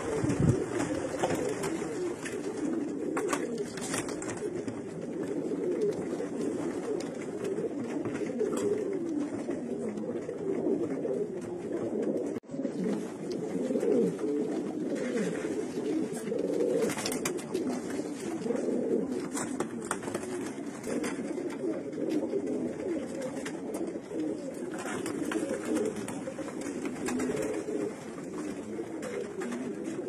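Domestic pigeons cooing, several voices overlapping into a continuous low, wavering coo with no break.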